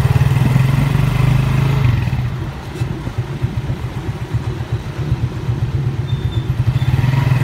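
Motorcycle engine of a tricycle (motorcycle with sidecar) running while under way, a steady low pulsing note. It eases off about two and a half seconds in and picks up again near the end.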